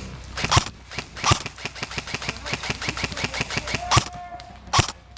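Airsoft guns firing: a rapid string of sharp pops of automatic fire, about eight to ten a second, with several louder single shots, and a brief steady tone about four seconds in.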